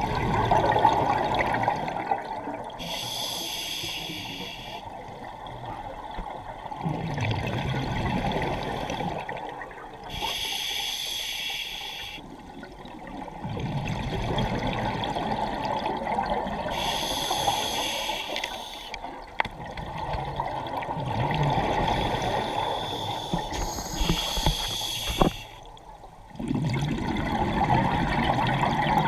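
Scuba diver breathing through a regulator underwater: a hiss on each inhale, then a burbling rush of exhaust bubbles on each exhale. About four breaths, one every six or seven seconds.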